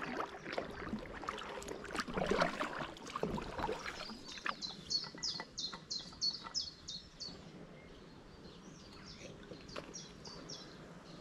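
A small songbird sings a fast run of about a dozen high, repeated chirps at roughly four a second, then a shorter run a few seconds later. In the first few seconds come the light splashes and drips of kayak paddle strokes in still canal water.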